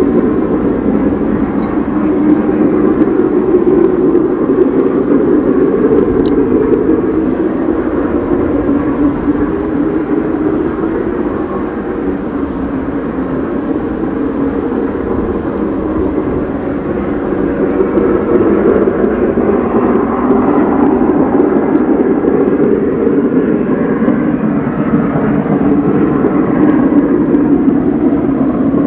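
LMS Royal Scot class three-cylinder 4-6-0 No. 46115 Scots Guardsman working a heavy thirteen-coach train in the distance, its exhaust heard as a loud, steady roar without distinct beats.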